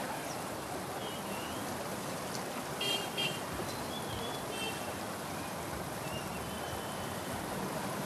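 Floodwater rushing steadily along a waterlogged street, a constant hiss of flowing water, with a few short high-pitched tones over it, the loudest about three seconds in.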